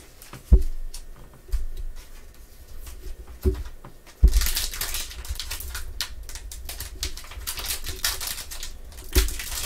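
A few dull thumps, then from about four seconds in the dense crinkling and crackling of a foil trading-card pack wrapper being handled and torn open by gloved hands.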